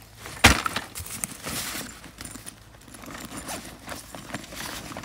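A fabric bag lands on wood-chip mulch with one sharp thump about half a second in, followed by scattered crackling and rustling as the bag and the mulch are handled.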